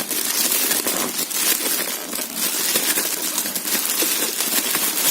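Packaging crinkling and rustling as it is handled and unwrapped, with many small crackles throughout.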